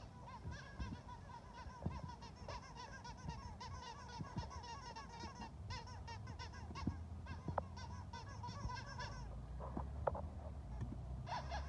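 Rubber squeaky dog toy squeezed over and over, a fast run of honking squeaks that stops about nine seconds in and starts again briefly near the end.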